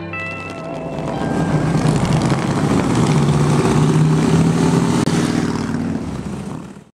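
Motorcycle engines running as a group of cruiser motorcycles rides past, their low pulsing note rising and falling with the throttle. The sound grows loud about a second in and fades out at the very end.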